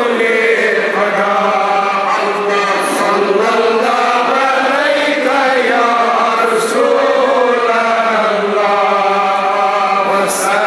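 Men chanting Darood (blessings on the Prophet) in unison, one continuous melodic recitation whose pitch rises and falls, with a brief hiss of sibilants recurring every few seconds.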